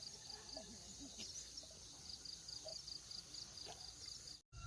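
An insect chirping in quick, regular high pulses, about four a second. It is absent at first, starts again about two seconds in, and cuts off suddenly near the end.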